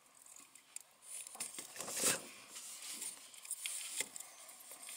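Wire strippers working on thin 22-gauge hookup wire, with rustling and small clicks from handling the wire. The loudest scrape comes about two seconds in, and a sharp click about four seconds in.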